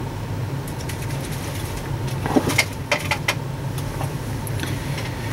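A steady low hum, with a few light clicks and knocks of small objects being handled a couple of seconds in.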